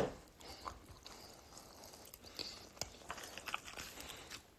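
Faint close-up mouth sounds of a man eating chicken wings: chewing with scattered wet clicks and smacks, a sharper click at the start.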